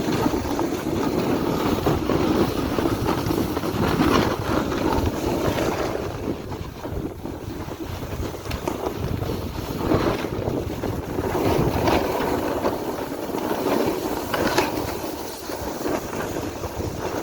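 Wind buffeting the microphone: a steady, gusting rush that swells and eases every few seconds.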